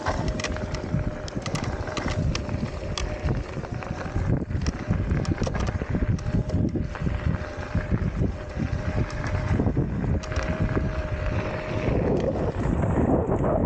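Wind buffeting the microphone and the rattle and knocking of an off-road electric scooter riding fast over a bumpy dirt forest trail. A faint steady whine runs under it and drops out near the end.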